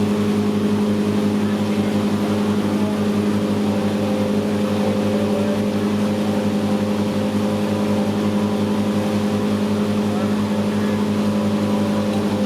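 A boat's inboard engine running at a steady speed, a constant droning hum with a fine rapid pulse and no change in pitch.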